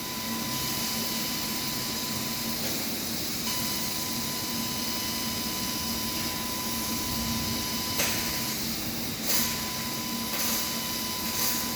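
100-watt CNC laser cutter with a rotary attachment running a cutting job: a steady hiss and machine hum with a steady high tone that cuts out briefly twice, and a few short knocks in the second half.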